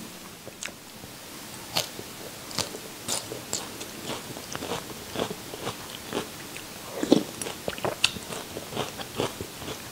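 Close-miked mouth sounds of a person eating boat noodles with chicken feet: irregular wet chewing smacks and clicks, with a louder noodle slurp from a spoon about seven seconds in.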